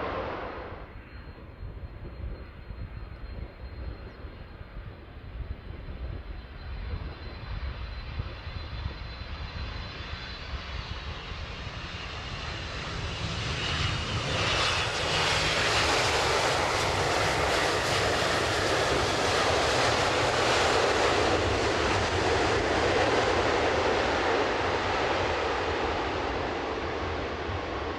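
Boeing 767-300 airliner on landing approach. Its turbofan engines begin as a faint high whine and rushing, grow steadily louder as it nears and passes, are loudest a little past the middle, then ease off.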